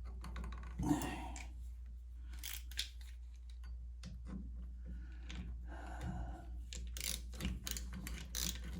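Light clicks and scrapes of a screwdriver and small metal parts being worked by hand while screws are driven into the turn signal switch bracket, turning into a quick run of clicks near the end.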